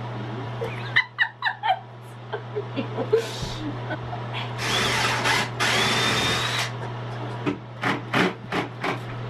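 Power drill running in two bursts of about a second each, the second with a rising whine, among sharp clicks and knocks of cabinet doors and hinge hardware being handled.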